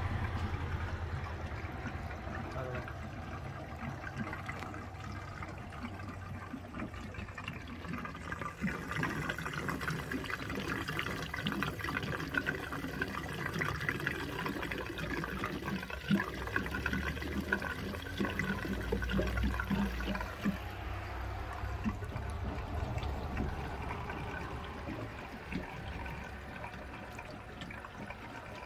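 Diesel fuel pouring from an upturned plastic jerry can through its spout into a drained engine crankcase's oil filler, for a diesel flush against sludge. It grows louder about eight seconds in and eases off again after about twenty.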